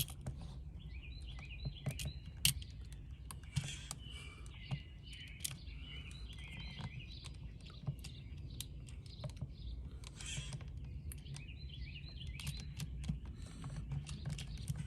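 Scattered light clicks and taps of hands working wires and screws into an outdoor electrical outlet, over birds chirping in the background and a steady low hum.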